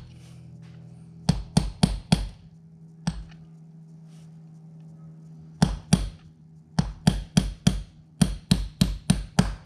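Hammer tapping a pin punch to drive a part home in a Brembo brake caliper. There are four quick taps about a second in, one more near three seconds, then a steady run of about three taps a second from halfway on. The ring of the strikes changes as the part bottoms out.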